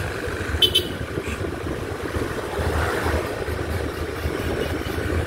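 Motorcycle on the move: a steady, noisy ride sound with an irregular low rumble throughout, and one brief sharp sound under a second in.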